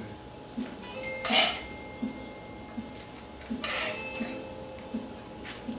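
A spoon scraping across a cast-iron skillet, with two loud scrapes about a second in and again near the middle and fainter scrapes between, over faint background guitar music.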